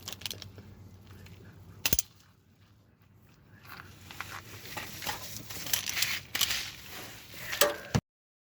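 Handling and tool noises while working on an exhaust bracket: a sharp click about two seconds in, then rustling and scraping with several sharp clicks in the second half. The sound cuts off abruptly near the end.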